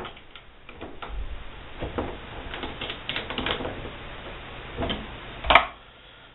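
Light, irregular metallic clicking as a hand driver turns a Sherline draw bar tight in the headstock, then a sharper knock about five and a half seconds in as the tool is put down on a wooden table.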